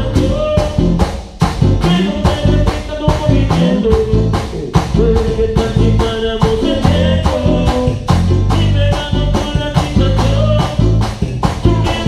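Live band playing an instrumental passage during a rehearsal and sound check: a steady fast beat of about four strokes a second, a heavy bass line and a held melody line over it.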